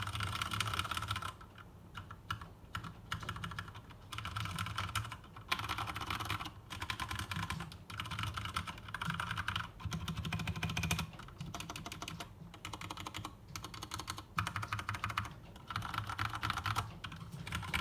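Typing on an Akko 3068 mechanical keyboard with tactile MX Brown switches: fast strings of keystrokes in runs of one to two seconds, with short pauses between the runs.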